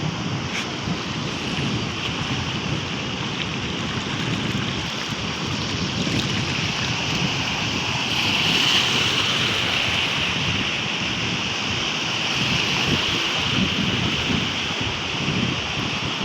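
Heavy surf breaking and washing at an estuary mouth, with wind buffeting the microphone; the wash swells louder about halfway through.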